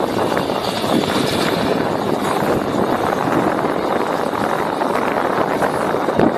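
Phosphate freight train running by: a steady, loud rumble with dense clattering of wheels and wagons.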